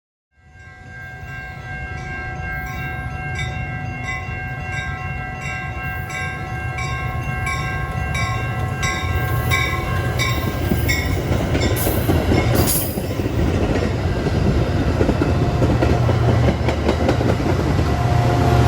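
Diesel-hauled train running and growing louder, its low engine rumble building steadily. Over it, for the first ten seconds or so, a bell rings steadily at a little under two strokes a second.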